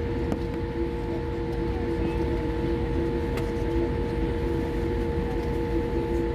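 Cabin drone of a jet airliner taxiing: a steady engine hum with a few held tones, one gently pulsing, over a low rumble.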